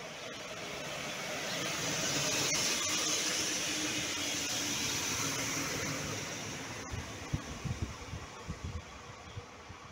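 Regional SA137 diesel railcar running past close by: its engine and wheel-on-rail noise swell and then fade as it moves away. Wind buffets the microphone in a run of low thumps near the end.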